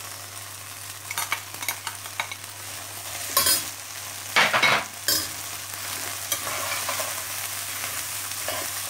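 Rice and sliced chicken frankfurters frying in a stainless steel pan, a steady sizzle, while a slotted spatula stirs and scrapes through them in irregular strokes; the loudest scrapes come about three and a half and four and a half seconds in.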